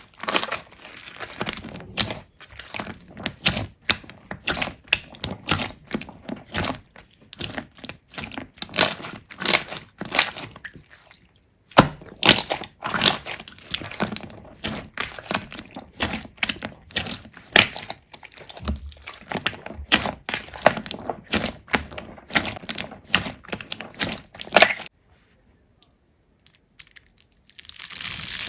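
Slime being squeezed and pressed by hand, giving rapid, irregular crackling and popping clicks, with a pause of about two seconds near the end.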